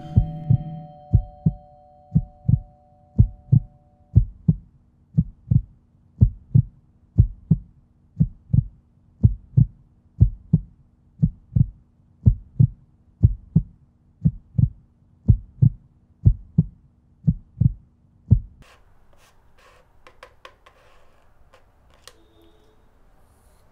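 Heartbeat sound effect in the film's soundtrack: low, regular thumps about one and a half a second, some in close pairs, over a low steady drone. Both cut off suddenly about three quarters of the way through, leaving faint scattered clicks.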